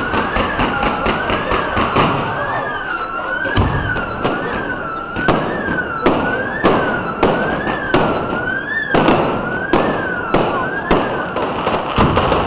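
Fireworks going off: a rapid run of sharp bangs and crackles. Over them a siren-like tone rises and falls about every two-thirds of a second throughout.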